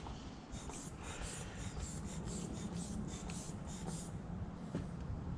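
A quick series of light scraping strokes, about four a second, that stops about four seconds in, over a steady low hum.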